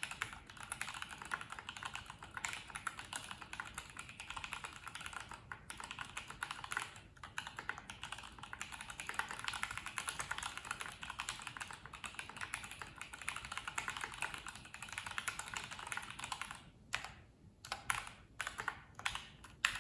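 Stock, unmodded GMMK Pro mechanical keyboard with Gateron KS3 yellow linear switches and PBT keycaps being typed on: a fast, steady clatter of keystrokes. It breaks into a few separate keystrokes near the end.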